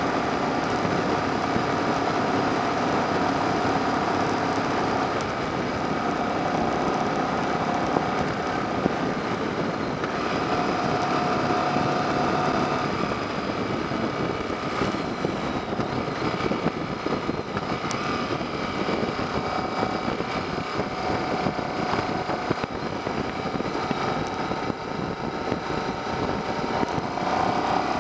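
Yamaha XV750 motorcycle's V-twin engine running at cruising speed, its note shifting with the throttle and rising near the end as it speeds up, with wind rushing over the microphone.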